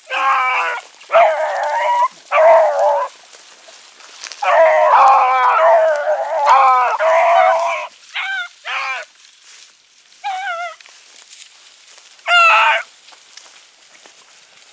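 Young rabbit hounds baying on a rabbit trail: a string of loud howling bays, some long and drawn out, others short with a wavering pitch. They come in bouts with brief gaps.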